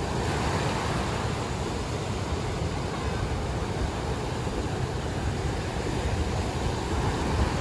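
Rough ocean surf breaking and washing up the beach, a steady rushing wash of waves, with wind buffeting the microphone and adding a low rumble.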